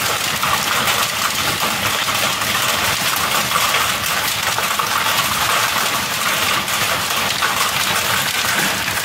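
Hail and rain hitting a corrugated metal sheet roof: a dense, steady rattle of many small metallic ticks.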